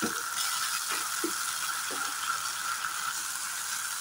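Mushroom pieces frying in mustard oil in a kadai: a steady sizzle, with a few soft scrapes as a wooden spatula stirs them.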